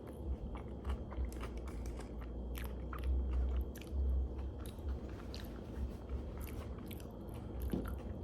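A person chewing food, with many small sharp wet mouth clicks and smacks and a couple of dull low thuds around three and four seconds in.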